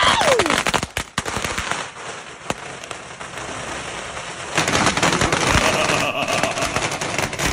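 A string of firecrackers going off in a long, rapid, irregular crackle of pops.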